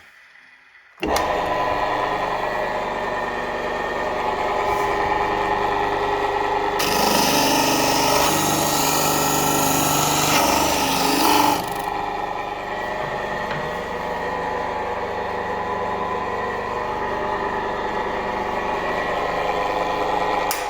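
A power tool starts about a second in and runs steadily, with a louder, rougher stretch of about five seconds in the middle.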